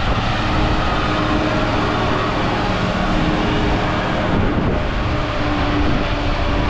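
Old tanker truck driving past, its diesel engine running loud and steady.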